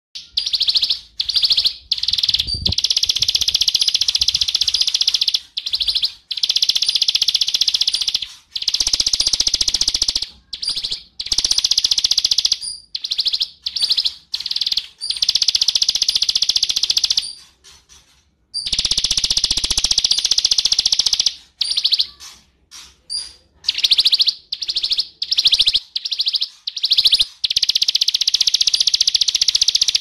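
A prinia sings a high, rapid trilling song over and over, in loud phrases of one to three seconds with short breaks between them.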